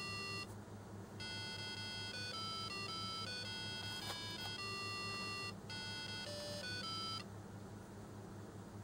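Electronic beeping melody from a model pedestrian crossing signal, playing steady single notes in a repeating phrase like the audible crossing guidance of Japanese walk signals, and stopping about seven seconds in as the walk phase ends. A steady low hum runs underneath.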